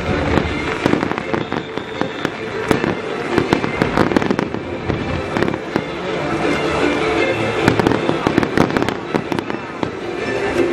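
Aerial fireworks display: a dense run of sharp bangs and crackling shell bursts, many in quick succession.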